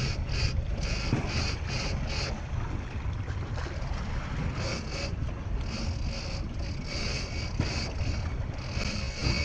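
Boat at sea with wind buffeting the microphone over a steady low rumble. A higher-pitched sound pulses about twice a second through much of it.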